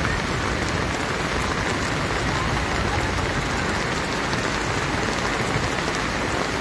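Heavy rain pouring steadily onto wet pavement.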